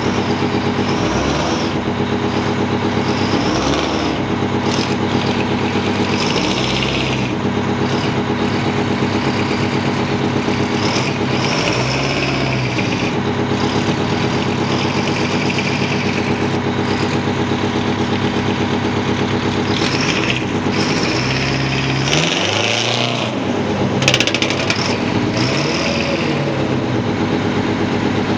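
Detroit Diesel two-stroke V8 fire-truck engines: one idles steadily close by while the other, pulling away, rises and falls in pitch several times as it is driven under throttle. A brief sharp clatter comes near the end.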